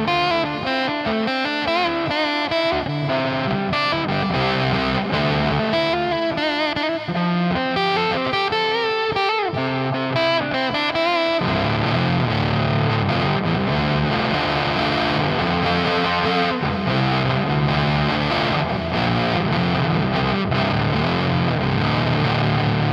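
Electric guitar played through a Dolamo D-2 fuzz pedal whose supply is lowered to 7.5 volts, as from a partly drained battery. The first half is fuzzy single-note lead lines with bends and vibrato; about halfway it turns to lower, thicker fuzz riffing.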